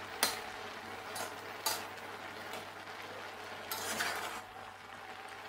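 A metal spatula stirring boiling chopped jackfruit in a metal pot. It clinks sharply against the pot a few times in the first two seconds, then scrapes more loudly around the four-second mark, over a steady hiss from the boiling pot.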